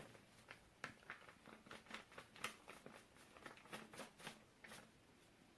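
Faint, irregular light taps and clicks of a spice container being handled while garam masala is added to the chicken.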